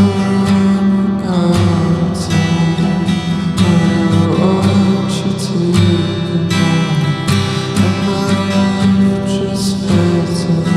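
Song music led by a strummed acoustic guitar with a steady rhythm.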